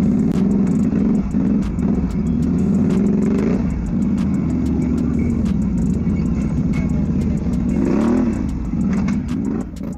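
Off-road vehicle engine working on a trail, its pitch rising and falling as the throttle is worked, with frequent sharp clicks and knocks over it.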